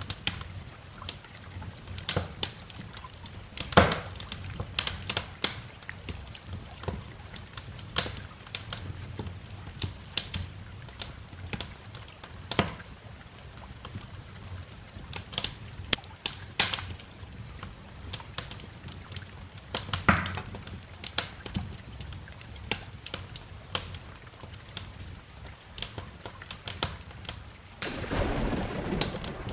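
Wood fire crackling in a fireplace, with irregular sharp pops and snaps over a low steady background of rain. Near the end a broader wash of noise swells up.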